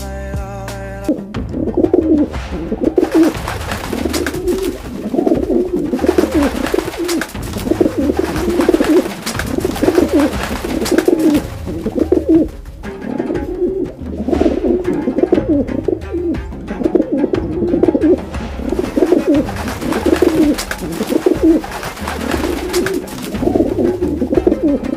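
Pigeon cooing over and over, in runs of coos a second or two long with short breaks between them. The coos stand in for a voice answering questions.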